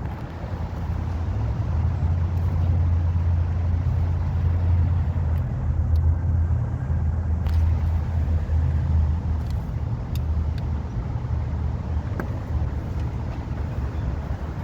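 A motor vehicle's low engine and road drone, swelling about a second in and then holding steady.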